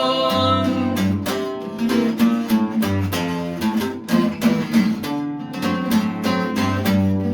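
Handmade bajo sexto with walnut back and sides and a European spruce top, strummed in a norteño rhythm: chords alternating with low bass notes on its doubled steel strings. A male voice holds the last sung word for about the first second.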